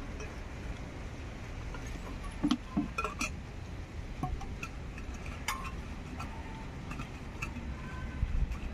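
Stainless steel kitchenware clinking: a ladle, a small steel container and its lid knocked together and set down, with a cluster of sharp clinks about two and a half to three seconds in and a few more after, some ringing briefly.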